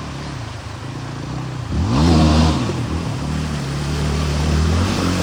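A vehicle engine running, revving up sharply just under two seconds in, then holding steady at a higher, louder pitch.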